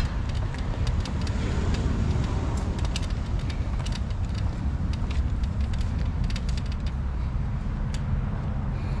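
City street ambience: motor traffic running steadily with a low rumble, with small scattered clicks and taps over it.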